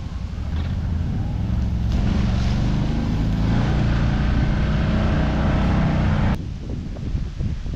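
Can-Am side-by-side UTV's engine running as the vehicle pulls away, growing louder about two seconds in as it accelerates, then stopping abruptly a little after six seconds in.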